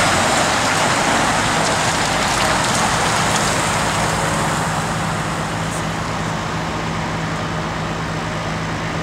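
MAN TGX 18.680 V8 truck with a refrigerated semi-trailer driving slowly away: a steady engine hum under a hiss of engine and tyre noise, fading gradually as it pulls off.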